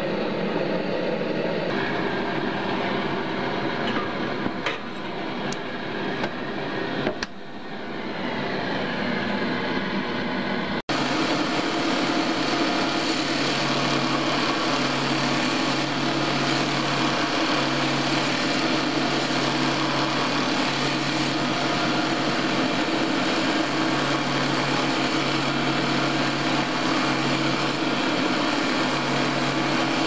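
Small belt grinder's motor running steadily while a steel blade is ground against the abrasive belt, a dense grinding hiss over a low steady hum. It starts suddenly about eleven seconds in. Before that there is a different, more uneven sound with a few clicks.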